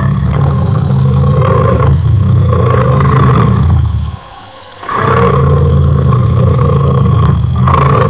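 Lion roaring loudly twice: a long roar of about four seconds, a short pause, then a second long roar starting about five seconds in.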